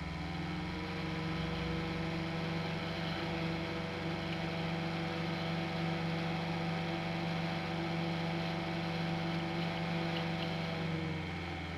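12 cm PC case fan running, a steady motor hum and whir. Its pitch rises during the first second as it speeds up, holds steady, then falls near the end as it slows.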